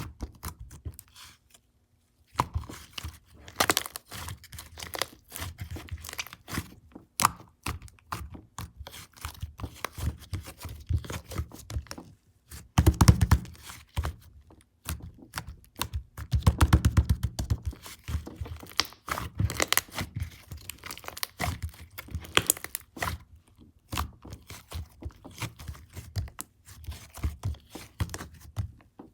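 Black slime being squished and stretched by hand close to the microphone: dense, irregular crackling and popping clicks with soft thuds. It pauses for a couple of seconds near the start and is loudest about halfway through.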